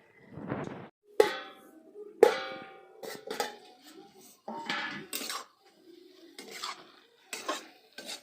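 Metal cookware being handled: two sharp ringing clangs of metal on metal, then irregular clattering and scraping of utensils against pots and dishes.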